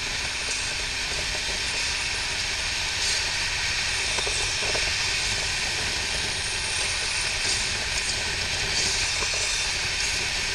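Wind rushing over the microphone of a camera mounted on a BMW R 1200 RT touring motorcycle at road speed: a steady hiss over a low rumble of the flat-twin engine and tyres.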